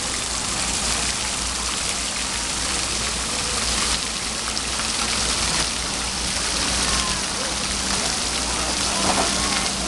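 The Josephine Shaw Lowell Memorial Fountain splashing steadily: water pouring off its stone bowl and arcing from side jets into the basin, a continuous, even rush of falling water.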